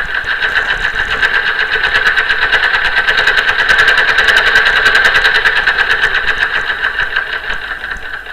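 Brother 1034D serger running at speed, a fast, even mechanical stitching rhythm that builds through the middle and eases slightly near the end.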